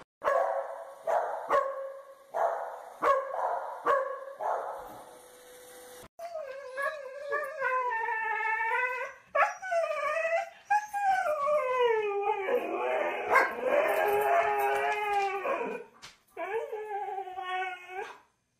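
A corgi barks in short bursts, about one every three-quarters of a second, over a steady hum for the first six seconds. Then a husky howls and 'talks' in long wavering calls that rise and fall in pitch, with a brief pause near the end.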